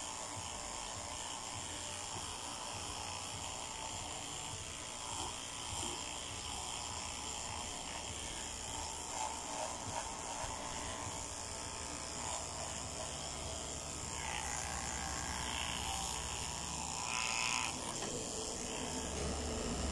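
Electric dog clippers running with a steady buzz as they shave through a dog's coat.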